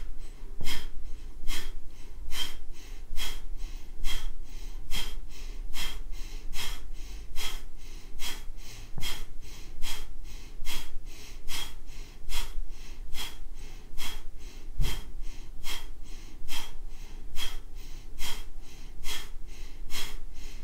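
A woman doing Kapalabhati (breath of fire) breathwork: quick, forceful exhales through the nose, each snapped out by the belly, with passive inhales between, in a steady, even rhythm.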